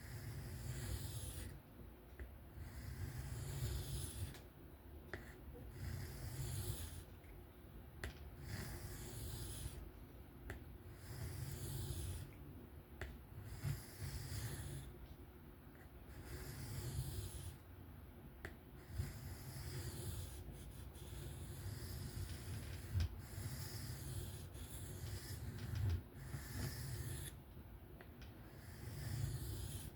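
Kizer folding knife's 154CM steel blade drawn by hand across a sharpening stone in a steady series of scraping strokes, one about every two to three seconds.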